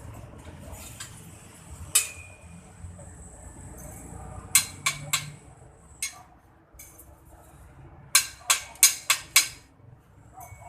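Hammer blows on a construction site: sharp, ringing strikes, first single, then a quick group of three, then a run of five at about three blows a second.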